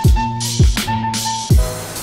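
Background music with a steady beat: deep kick-drum hits, snare or cymbal strokes and held melodic notes.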